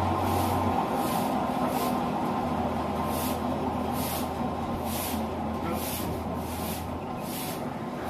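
Machinery running steadily with a low hum that cuts out briefly and comes back, and short hisses about once a second.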